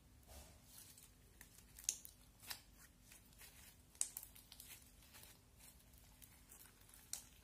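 Orange floam slime, slime packed with small foam beads, being stretched and squeezed by hand: a faint crackling and sticky popping, with a few sharper pops.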